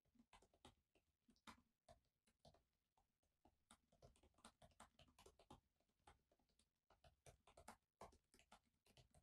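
Faint, irregular tapping of laptop keys as someone types, several clicks a second.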